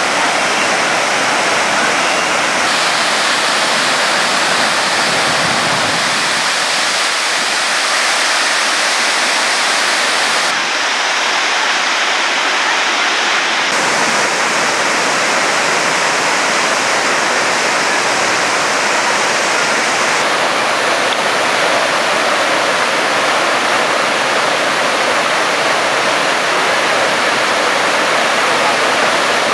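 Shallow river rushing over rocks and rapids: loud, steady water noise whose tone shifts abruptly several times.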